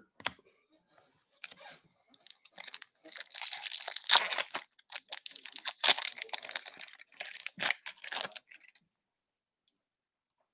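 Foil hockey-card pack torn open and crinkled by hand: a crackling rustle of thin foil lasting several seconds, loudest in the middle, stopping a little before the end.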